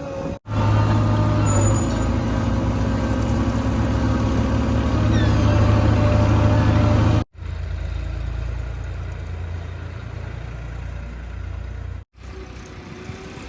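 JCB 3DX backhoe loader's diesel engine running hard and steadily. It drops to a quieter run after an abrupt cut about seven seconds in. The sound breaks off sharply three times, near the start, partway through and near the end.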